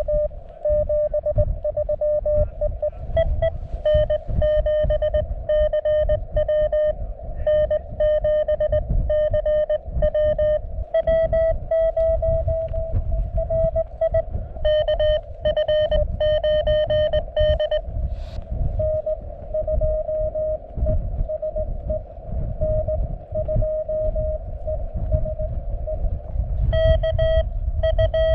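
Morse code on a 20 m CW transceiver: a single tone keyed on and off in dots and dashes, stepping slightly higher in pitch at times. Under it, wind rumbles on the microphone.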